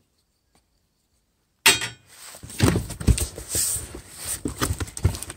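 Silence, then about a second and a half in a sudden loud crack as a cardboard shipping box is opened by hand, followed by continuous rustling and crinkling of the kraft packing paper inside.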